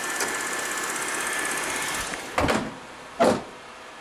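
1993 Chevy Corsica engine running with the hood open: a steady mechanical whir with a fast, even ticking. About halfway through it drops to a quieter level, and two dull thumps follow.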